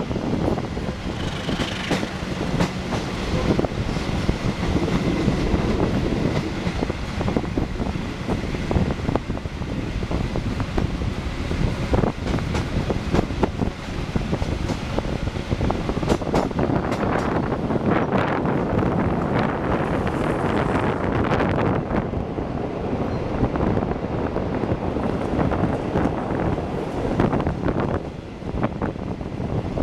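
Passenger train rolling past as it departs, with steady wheel-on-rail rumble and many short clicks of the wheels over rail joints.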